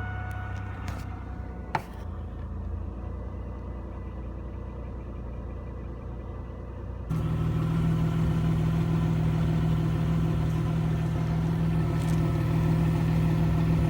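1997 Chevrolet Camaro's 3800 V6 idling steadily just after being started, on a check for a cylinder 3 misfire after a cracked spark plug wire was replaced. There is a sharp click about two seconds in. About seven seconds in the sound jumps abruptly to a louder, deeper engine note that holds steady.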